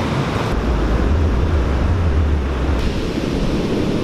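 Ocean surf and wind buffeting the microphone, with a heavy low rumble of wind on the mic for about two seconds in the middle.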